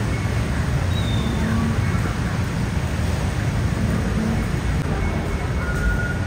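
Steady city street noise: a low traffic rumble under a constant hiss, with a few brief faint tones.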